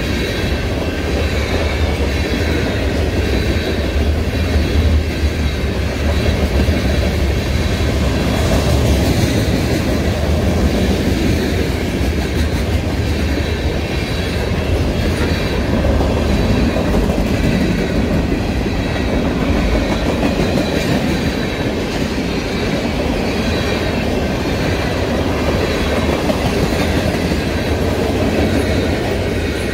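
Freight train cars rolling past at speed: a steady rumble of steel wheels on the rails with clickety-clack over the rail joints.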